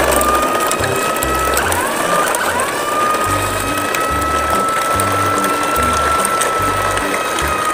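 A long train of toy trucks rolling over a concrete path, their wheels and loose loads rattling continuously, with a steady high whine that briefly dips and recovers twice about two seconds in.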